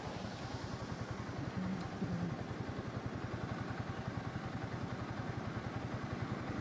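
Yamaha R15 V3's single-cylinder engine idling at a standstill, with a steady, fast, even pulse.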